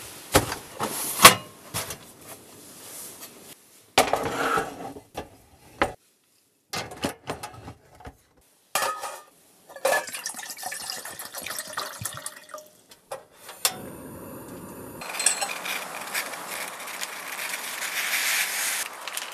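Camp-cooking sounds around a small stainless pot on a portable gas stove: a plastic water jug and the pot being handled with clinks and clatter, and water poured into the pot. From about three-quarters of the way through comes a steady hiss of the burner with the water boiling.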